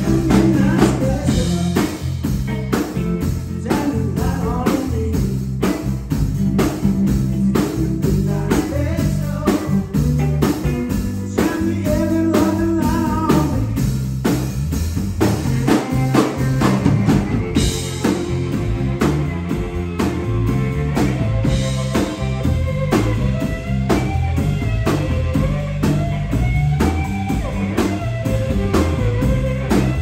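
A live blues-rock trio plays an instrumental stretch: an electric guitar carries a lead line with wavering, bent notes over electric bass and a drum kit.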